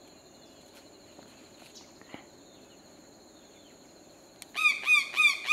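Faint steady high insect buzz, then about four and a half seconds in a bird starts a loud call of quickly repeated arching notes, about three a second.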